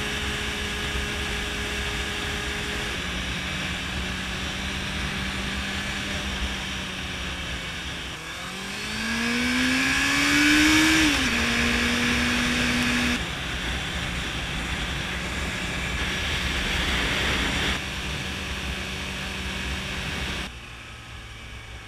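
2014 Honda CBR650F's inline-four engine running at a steady cruise under wind rush on a helmet-mounted camera. About eight seconds in, the revs rise for about three seconds, then drop suddenly as it shifts up and hold steady.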